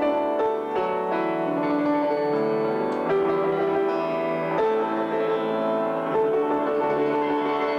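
Piano playing, with notes and chords struck and left to ring on over one another.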